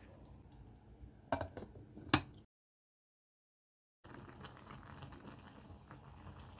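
Water with instant noodles boiling in a small electric pot, a soft steady bubbling, with two sharp knocks about a second and two seconds in. The sound drops out completely for about a second and a half partway through.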